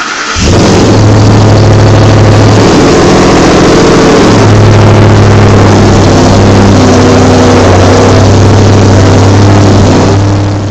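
Supercharged 6.2-litre V8 of a Ford F-150 SVT Raptor starting up and running very loud at raised revs, dropping back near the end.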